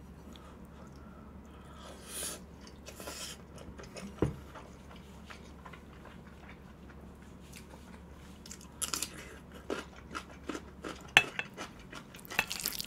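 Close-up eating sounds: chewing with some crunchy bites, and eating utensils clicking against the dishes. The clicks are sparse early on and come in clusters in the second half. A faint low hum runs underneath.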